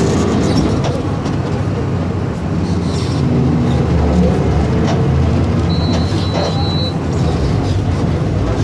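Diesel engine of a Volkswagen 17.230 EOD city bus running steadily. A short high beep sounds about six seconds in.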